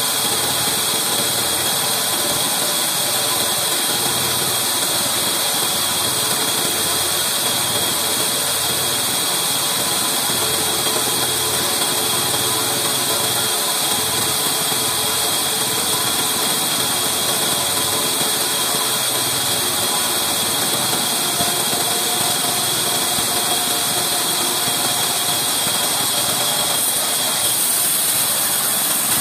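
Large vertical band saw running steadily while an old wooden beam is fed through it, the blade ripping lengthwise along the timber.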